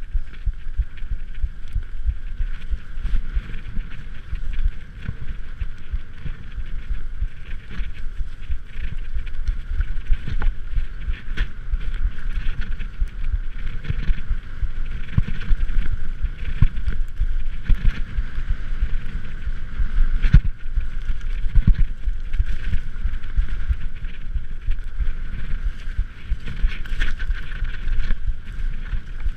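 Mountain bike rolling fast downhill over rough grass and dirt, picked up by a body-mounted action camera: a continuous rumble and whirr with frequent knocks and rattles as the bike jolts over bumps.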